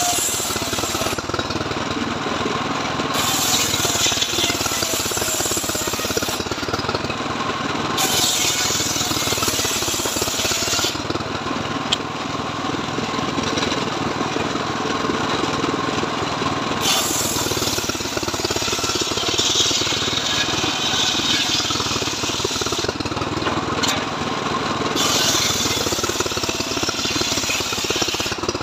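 Homemade engine-driven circular saw rig ripping a mahogany log: the engine runs steadily throughout, and a hissing cut sound comes and goes about five times as the log is fed through the blade and drawn back.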